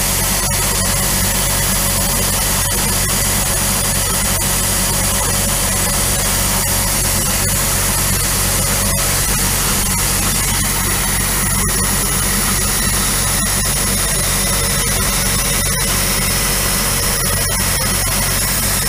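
Milling machine cutting a slot with a half-inch end mill, its motor humming steadily under the loud, even hiss of the mist coolant spraying the cut, with a few faint ticks.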